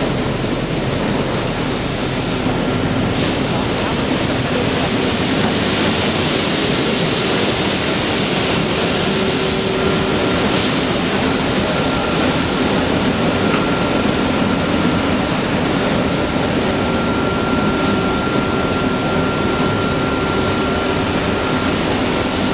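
Wide belt sander for plywood running, a loud steady rushing noise with a faint hum under it. The high hiss dips briefly three times, about seven seconds apart.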